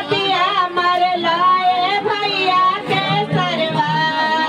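A song with a sung vocal line over instrumental accompaniment, the voice's pitch gliding and wavering on held notes.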